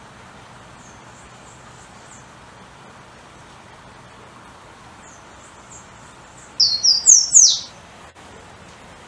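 Golden-crowned warbler (pula-pula) singing. Faint runs of thin high notes come early on and again about five seconds in. Near the end a loud, short phrase of slurred whistles rises and falls, over a steady background hiss.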